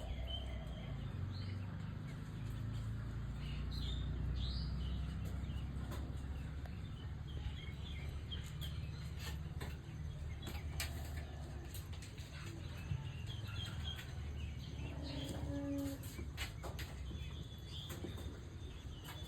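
Birds chirping and wings flapping over a steady low rumble, with scattered sharp clicks throughout and a brief low call about fifteen seconds in.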